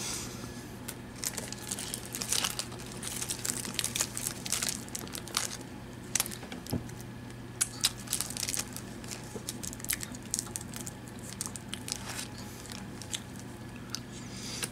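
Irregular soft crinkles and crackles close to the microphone, from handling and eating a chocolate-coated Marinela Gansito snack cake and its plastic wrapper, over a low steady hum.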